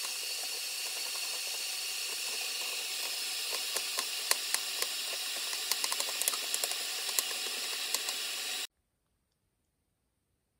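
A kitchen knife cutting apple on a plastic cutting board: scattered sharp clicks and taps of the blade and pieces against the board over a steady hiss.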